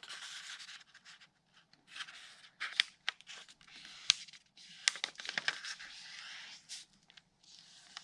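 A sheet of paper being folded in half and pressed into a crease: irregular rustling and scraping, with a few sharp taps.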